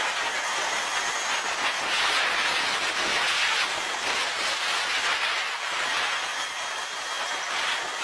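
Steady rushing hiss from a running aircraft turbine, with no marked rhythm and a faint thin whine near the end.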